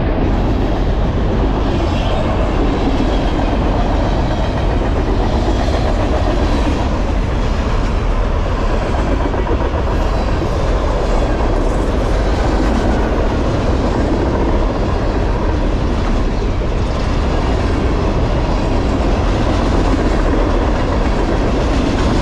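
Norfolk Southern trash train's high-sided gondola cars rolling past close by: a steady, loud rumble of steel wheels on the rails.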